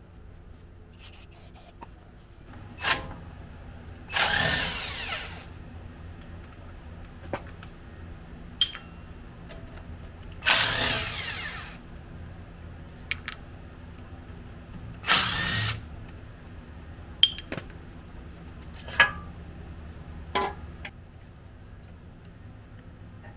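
A power tool run in three short bursts of about a second each, with scattered clicks and knocks between them.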